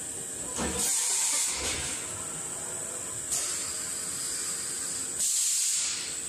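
TIG welding arc hissing steadily, with two louder stretches of hiss, one about a second in and one near the end.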